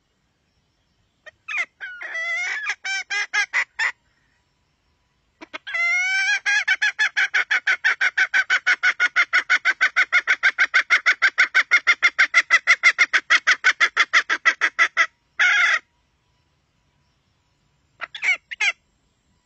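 Red junglefowl hen calling: a few short calls, then a long run of rapid clucks at about five a second lasting some nine seconds, then a short burst and a few last notes near the end.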